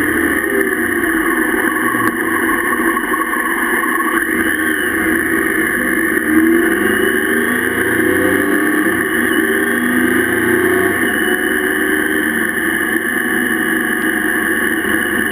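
Motorcycle engine running while riding, under steady wind and road noise; the engine note rises a couple of times about halfway through as the throttle opens.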